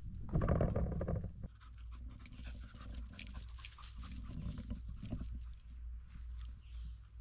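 Dogs and a person walking a forest trail: footsteps rustling and snapping through leaf litter and twigs, many small clicks and rustles. A louder low rumble of handling or wind on the microphone fills the first second and a half.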